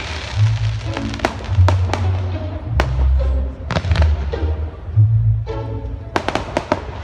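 Fireworks display: a dozen or so sharp bangs and cracks of shells and comets going off at irregular intervals, over loud music with a heavy, sustained bass line.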